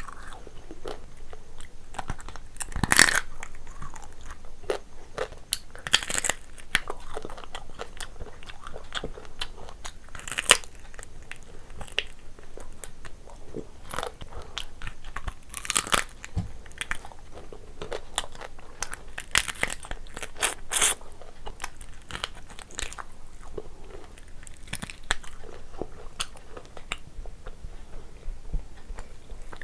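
Close-up eating sounds: biting and chewing on cooked lobster, with sharp crunches of shell now and then, loudest about 3 s in and again around 6, 10, 16 and 20 s, and small wet clicks of chewing in between.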